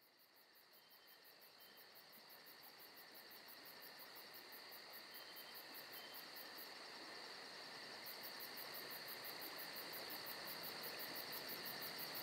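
Evening chorus of crickets and other night insects, a steady rapid pulsing trill that fades in from near silence and grows louder.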